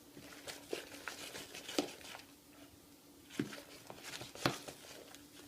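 Spoon stirring sticky shaving-cream slime in a bowl: irregular soft squelches and crackles with a few sharper clicks of the spoon against the bowl.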